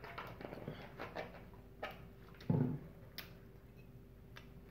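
Quiet eating sounds: scattered small clicks and mouth noises, with a metal fork against a plate, and one short, louder low sound about two and a half seconds in.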